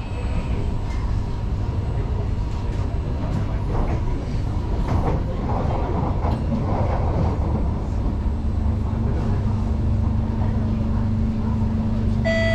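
Singapore MRT train running on elevated track, heard from inside the car: a steady rumble of wheels on rail with scattered clatter, joined by a steady low hum about two-thirds of the way through. A multi-tone chime, the on-board announcement chime, starts just before the end.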